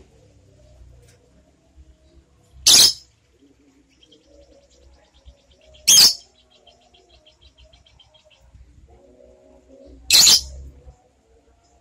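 Light-blue lovebird giving three loud, short, shrill calls a few seconds apart, with a faint rapid chatter between the second and third.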